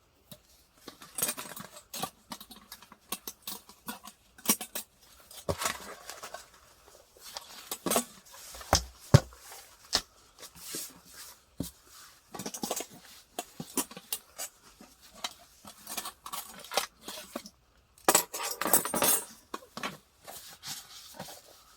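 Metal gear being handled: irregular clinks and knocks, with a short burst of rustling and rattling about eighteen seconds in.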